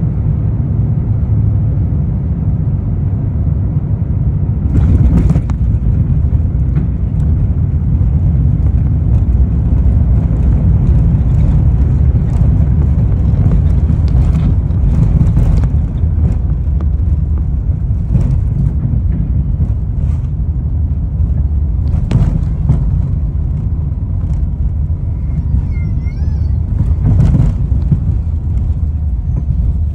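Jet airliner cabin noise on arrival: a steady low rumble of engines and airflow, with a few brief knocks about 5, 15, 22 and 27 seconds in.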